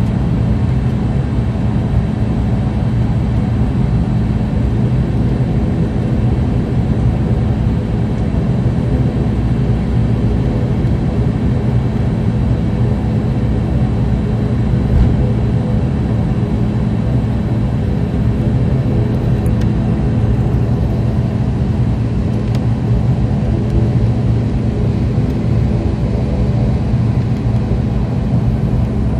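An ATR 72's turboprop engine and propeller heard from inside the cabin while taxiing: a steady drone with a low hum of several even tones.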